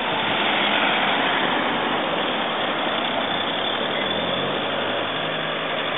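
Steady wind and road noise from a car on the move, heard through an open window, with a low engine hum coming up about four seconds in.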